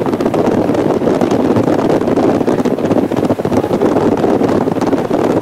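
Strong sea wind buffeting the microphone: a loud, gusting rumble.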